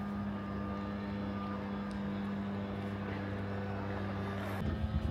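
Steady low engine hum of unchanging pitch, which cuts off abruptly near the end.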